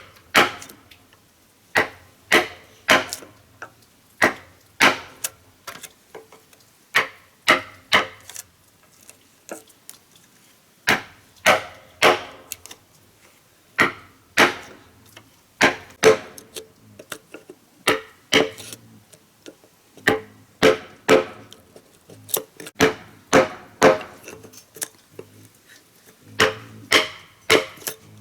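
A hand tool striking wood again and again: sharp blows about one or two a second in uneven groups, each with a short ringing tail.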